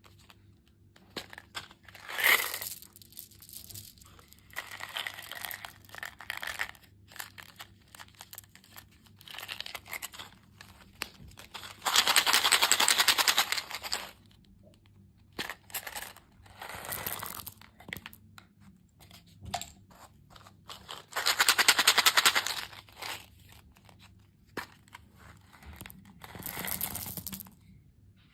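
Close-miked crunching and crinkling of candy and desserts being eaten, coming in separate bursts, with two loud ones of about two seconds, one near the middle and one about three quarters through.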